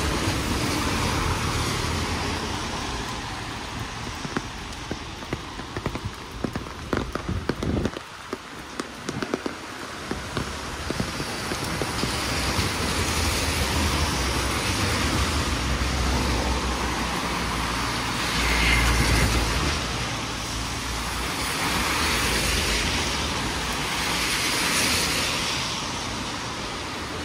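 Cars driving past on a rain-soaked road, their tyres hissing on the wet surface, over steady rain. Several passes swell and fade, and a run of irregular sharp taps sounds in the middle.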